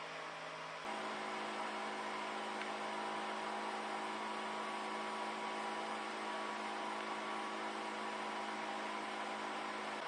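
Small 12-volt DC fan of a homemade ice-bucket air cooler running steadily: a low hum with a light rush of air, a little louder from about a second in.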